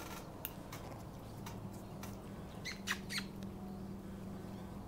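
Small Havanese puppies playing with stuffed toys: a few short, high squeaks over a low steady hum.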